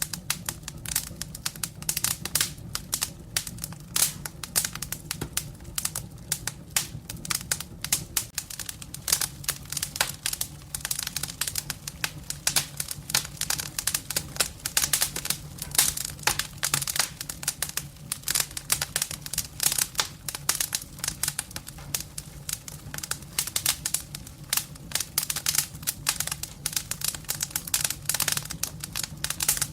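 Wood fire burning in a fireplace, crackling with dense, irregular sharp pops, over a low steady rumble.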